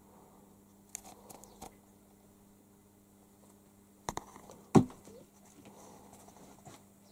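A kitten scrabbling on a wooden bunk bed, with a few light clicks and scratches about a second in, then two thumps close together as it jumps down and lands; the second, deeper thump is the loudest.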